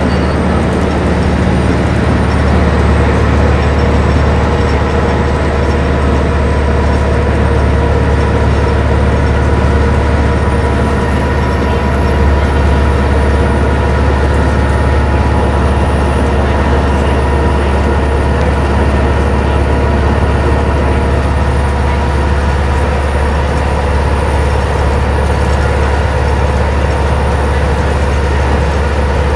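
Inside the cabin of a 1992 Stewart & Stevenson Apollo T-40 transit bus cruising on the freeway: the steady, deep drone of its Detroit Diesel Series 50 EGR inline four-cylinder diesel under load, mixed with road and tyre noise.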